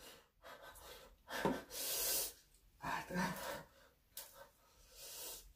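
A person's breathing: several short, breathy hisses and exhalations, with gaps of quiet between them.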